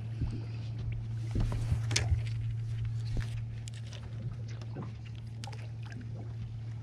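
Steady low hum of a boat's motor, with scattered sharp clicks and knocks and a brief hiss about a second and a half in.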